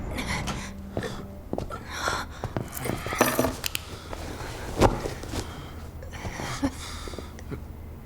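Heavy breathing and short grunts of effort, with clothes rustling and a few knocks, the loudest about halfway through.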